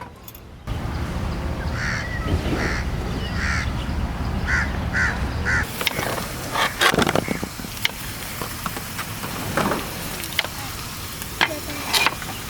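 A bird calling in a series of about seven short calls over a steady low rumble. The rumble stops abruptly a little under halfway through, and scattered knocks and clicks follow.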